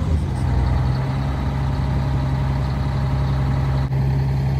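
Diesel engine of a 1989 Crown Super Coach school bus idling steadily.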